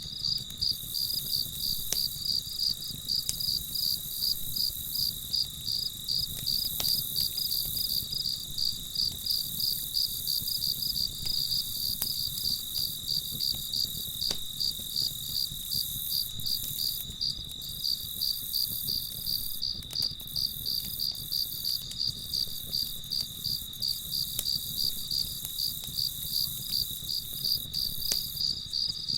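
Crickets chirping in a steady, even pulse of several chirps a second, with a few faint crackles from a campfire.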